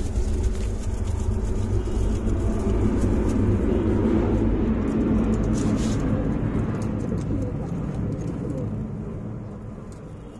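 Low, steady engine rumble that fades away over the last few seconds.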